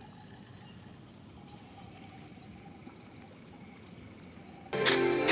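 Faint, steady outdoor noise of lake water and breeze at the shoreline. Near the end, loud background music with a steady beat cuts in suddenly.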